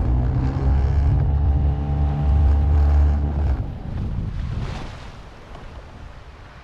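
A small boat's engine running steadily, then stopping a little over halfway through, leaving wind on the microphone and water lapping against the hull.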